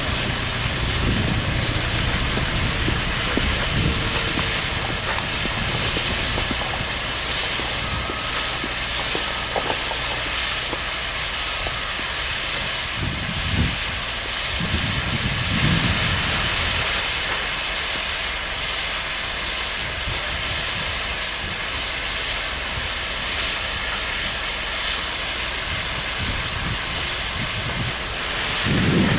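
Steady steam hiss from a standing GWR 'Large Prairie' 2-6-2T tank locomotive, over the low running of a telehandler's diesel engine. Around the middle, a rumble as a bucket of coal is tipped into the locomotive's bunker.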